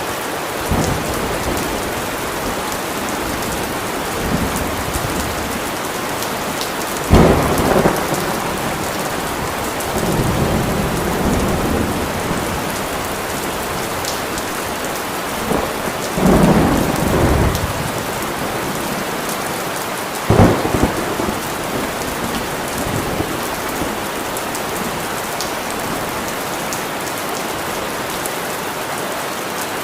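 Steady rain falling, with thunder breaking in four times: a sharp clap about seven seconds in, a longer low rumble a few seconds later, another rumble past halfway, and a second sharp clap about twenty seconds in.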